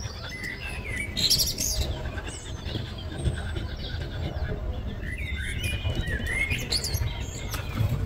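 Small birds chirping in short, quick calls that swoop up and down in pitch, clearest about a second in and again past the middle, over a low, steady rumble.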